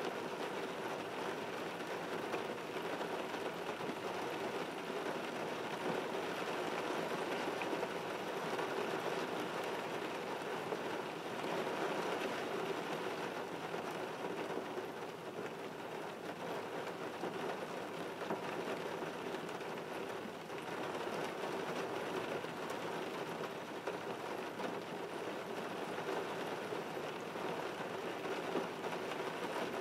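Steady rain falling on a car's windshield and body, heard from inside the car as an even, unbroken wash of drops.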